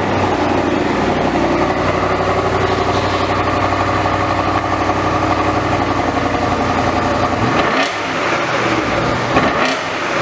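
2019 BMW M850i's twin-turbo 4.4-litre V8 running steadily through a resonator-deleted exhaust. Its level dips briefly about eight seconds in, then picks up again.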